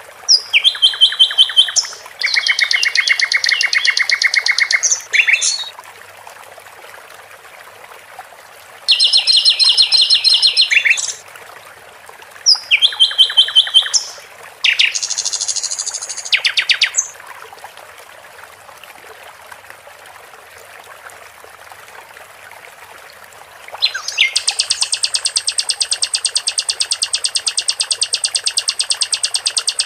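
Common nightingale (sikatan londo) singing. It gives phrases of fast, rapidly repeated high notes, several short phrases a few seconds apart in the first half, then a quiet gap of several seconds. Near the end comes one long unbroken trill of quick repeated notes.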